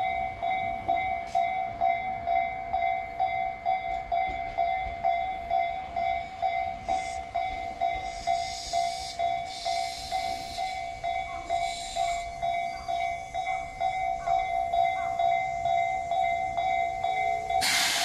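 Japanese level-crossing warning bell ringing with a steady two-note electronic tone, pulsing about twice a second. A Tobu 8000-series electric train runs past, adding rail noise with hissing bursts midway and a short loud hiss near the end.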